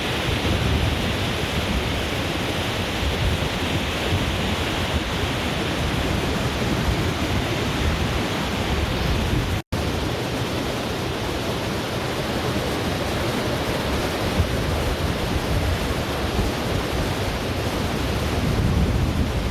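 Steady rushing of fast-flowing river water, a continuous even roar that drops out for an instant about halfway through.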